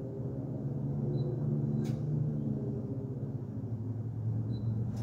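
Wheel balancer spinning a heavy 32-inch wheel and tyre, a steady low hum, with a single click about two seconds in.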